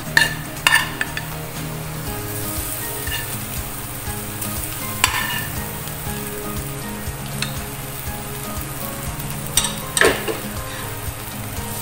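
Onion-and-spice masala sizzling steadily in a non-stick frying pan as shredded cooked beef is tipped in from a pressure cooker and pushed around with a spatula, with a few sharp knocks of metal against the pan.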